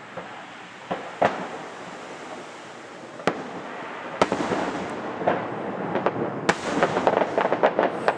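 Distant aerial fireworks exploding: a few separate bangs over the first four seconds, then a fast cluster of many cracks near the end, over a steady background rumble.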